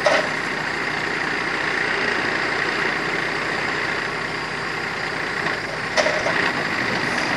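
MAN TGA 480 truck's diesel engine running steadily to drive the hydraulics of its Kesla timber crane as the crane lifts and swings a log onto the trailer. A steady whine runs through it, with a sharp knock right at the start and another about six seconds in.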